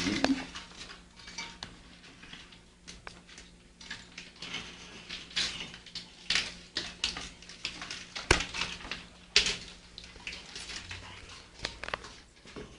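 Kitchen utensils clinking, knocking and scraping in a bowl in an irregular run of clicks, while Maria biscuits are mashed with butter for a cheesecake base. A sharper knock comes about eight seconds in.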